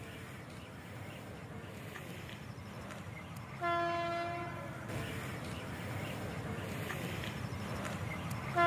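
Horn of an approaching WAP-4 electric locomotive: one short blast a little under four seconds in and another at the very end, over a low rumble that grows as the train draws closer.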